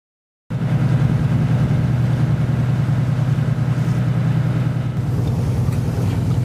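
The herring drifter's inboard engine running steadily, a low drone that cuts in suddenly about half a second in.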